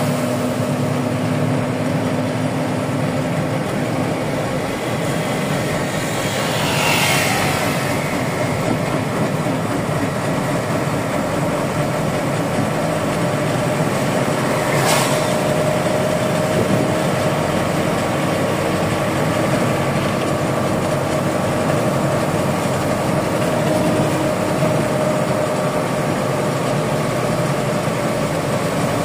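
A truck's diesel engine running steadily, heard from inside the cab while driving, with tyre hiss on a wet road. Twice, about seven and fifteen seconds in, an oncoming vehicle swishes past.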